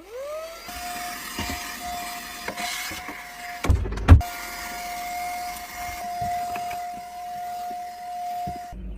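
A small electric motor spins up with a rising whine, then runs at a steady pitch. Two loud knocks come about four seconds in, and the motor cuts off suddenly just before the end.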